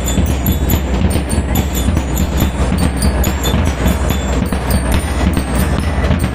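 School drum and lyre band playing: bell lyres ring out quick, evenly spaced notes over steady marching drums.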